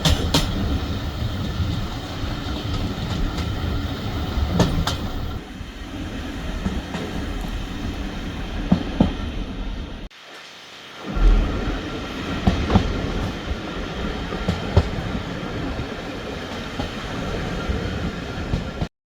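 Heritage railway train running on the line: a steady rumble with occasional sharp clicks. It cuts out briefly about halfway through, then stops abruptly near the end.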